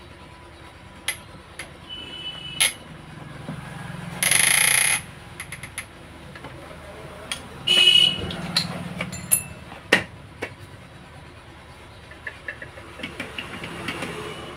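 Light metallic clicks and knocks from handling a submersible pump's impeller stack, with two loud, brief noisy blasts about four and eight seconds in.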